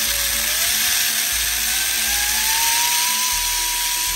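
7800 kV brushless motor on a Hobbywing EzRun 25 A ESC spinning up in an MN82 RC truck held off the ground: a whine that rises in pitch for about three seconds and then holds steady, over loud gear and drivetrain noise.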